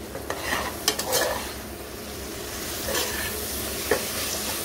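Steel slotted spatula stirring onions, coriander and mint frying in an aluminium pressure cooker, with a steady sizzle and a few sharp clinks of the spatula against the pot.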